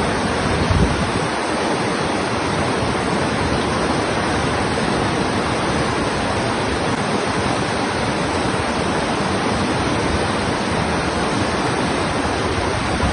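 Waterfall water rushing close by: a loud, steady, unbroken noise.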